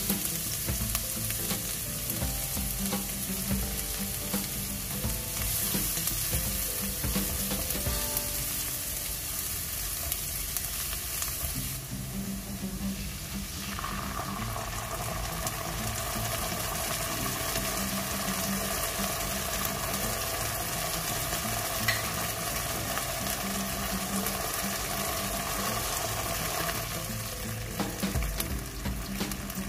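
Minced garlic sizzling in hot cooking oil in a nonstick wok, a steady frying sizzle. About halfway through the sizzle changes and softens as oyster sauce is poured over the garlic.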